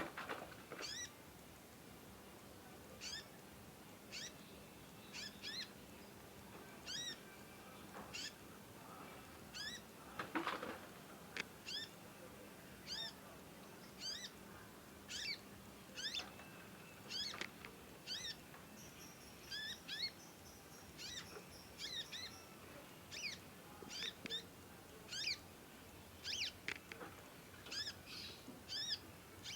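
Young conin songbird calling in short, sharp, down-slurred chirps, about one a second, as a juvenile still learning its song. One louder, fuller call comes about ten seconds in.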